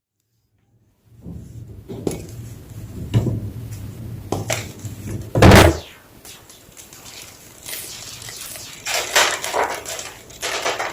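Two large slabs of gym chalk being crushed: a string of irregular crunches and sharp snaps, the loudest about halfway through, with crackling crumbles near the end.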